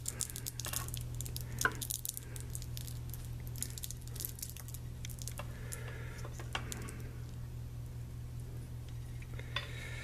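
Craft knife scoring the stiff outer jacket of a multi-conductor cable: a run of small scrapes and clicks, thickest in the first few seconds and sparser after, over a steady low hum.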